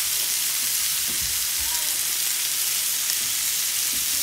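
Several thick steaks sizzling steadily as they sear in butter and oil in a pan at full heat.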